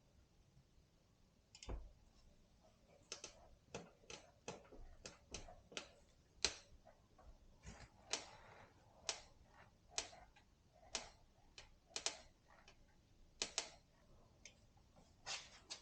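A series of sharp, separate clicks, roughly one a second at uneven spacing, during hand work on a mountain bike's suspension linkage.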